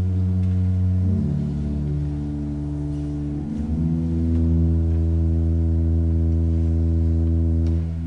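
Slow, sustained chords of church music over a deep bass, changing chord twice and settling on a long held final chord that is released near the end, its sound fading away in the room's reverberation.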